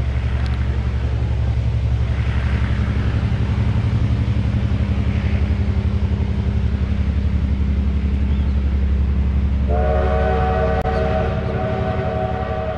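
A locomotive working away up the grade: a steady low rumble with a fast pulsing beat. About ten seconds in, it sounds a held multi-note chord as a warning signal, which runs to the end with a small shift in pitch just before the end.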